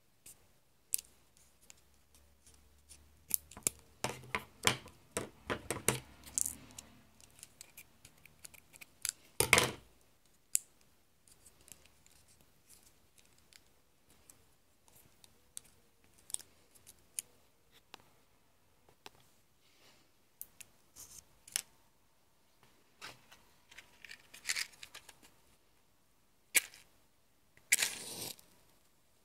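Steel scissors snipping and clicking on a thin plastic drinking straw, with many sharp clicks and one loud snap about nine seconds in. Scattered small handling clicks follow, and near the end a match is struck and flares with a short hiss.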